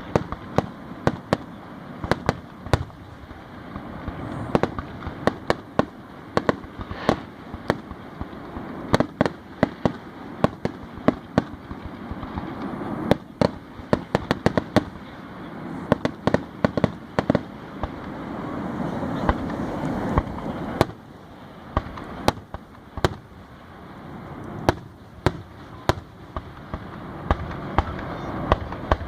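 Fireworks display: an irregular string of sharp bangs from exploding shells, several a second at times, over a steady background din.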